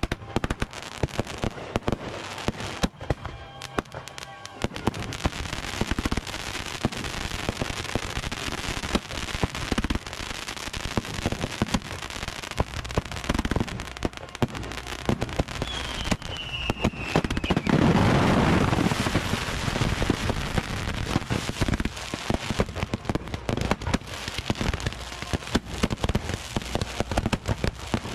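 Consumer fireworks going off in rapid succession: a steady stream of sharp bangs and crackles over a hiss of fountains, with a whistle falling in pitch about sixteen seconds in and a loud rushing blast about two seconds later. The fireworks are setting one another off in an uncontrolled chain as the stockpile catches fire.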